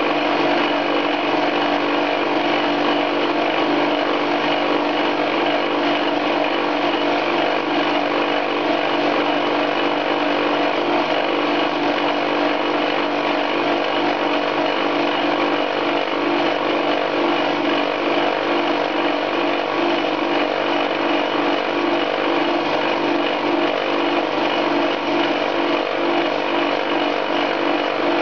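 Metal lathe spinning a homemade two-tipped indexable carbide fly cutter at 1400 rpm, milling an interrupted cut across hard steel: a loud, steady machining noise. The cut runs smoothly with no shaking or rattling, the carbide going through the hard steel easily.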